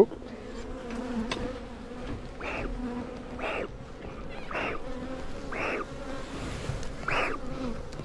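Steady buzzing of a colony of honeybees at an open Layens hive. From about two seconds in, a bee smoker's bellows is squeezed five times about a second apart, each stroke a short puff of air.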